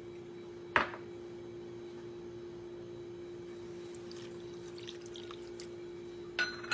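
Water poured from a glass onto dry sugar in a non-stick frying pan, a faint splashy trickle about four seconds in, with light clinks near the end. A steady hum runs underneath, and a sharp click sounds just under a second in.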